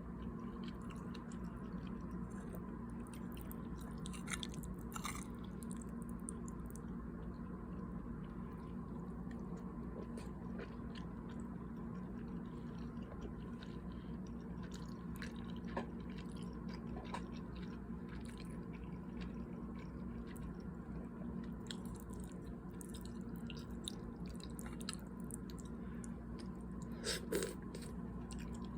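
A person chewing a mouthful of cheesy beef taco pasta close to the microphone, with scattered short clicks and a couple of louder ones, the loudest near the end, over a steady low hum.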